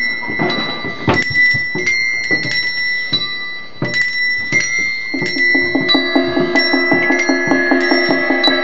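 Gamelan-style music played on struck metal percussion: high, bell-like strokes that ring on. About five seconds in, a fast, even run of repeated lower notes joins them, about four a second.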